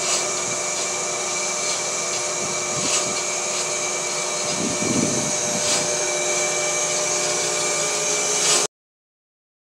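Homemade bandsaw running: its electric motor and belt-and-pulley drive whir steadily with a steady hum and faint recurring ticks, then the sound cuts off abruptly near the end.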